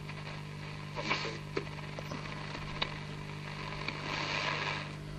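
Pionier valve radio receiver tuned between shortwave stations: a steady hiss of static with a low buzz and a few sharp crackles as the dial is turned. The buzz is interference, which the uploader puts down to energy-saving bulbs and switch-mode power supplies.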